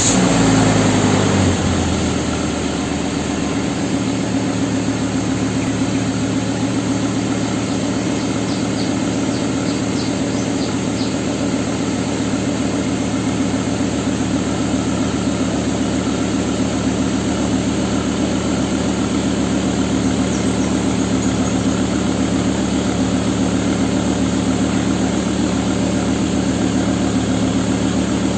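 First-generation Volvo S60's five-cylinder engine idling just after a cold start, heard at the exhaust tailpipe. The revs drop from the start-up flare within the first couple of seconds and settle into a steady idle.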